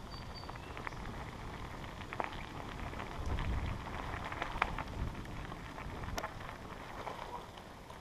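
Bicycle tyres crunching over a packed-dirt trail, with scattered ticks and rattles and low wind rumble on the microphone.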